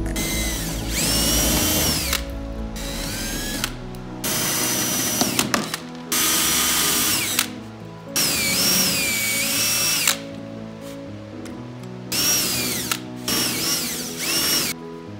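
Cordless drill drilling out the gunwale rivets on a plastic canoe hull in about seven short bursts, the motor's whine rising as it spins up and falling as it stops. Background music plays underneath.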